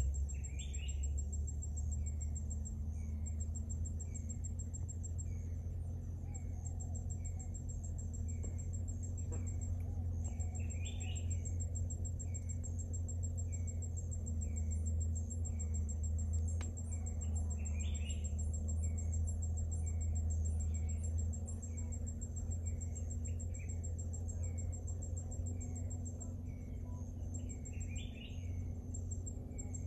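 Outdoor wildlife ambience. A bird repeats a short chirp about once a second, with a fuller, louder call every seven to ten seconds. Over this runs a steady high insect trill, with a faster high pulsing from about the middle, all above a low steady rumble.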